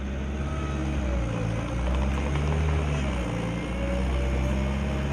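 Heavy machine's engine running with a steady low drone that swells and eases a few times, and a faint wavering whine above it.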